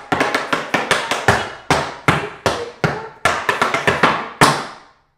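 Metal-plated tap shoes striking a hard studio floor in a rhythmic tap-dance phrase: a quick run of sharp clicks and heavier strikes, ending on a single hardest strike about four seconds in.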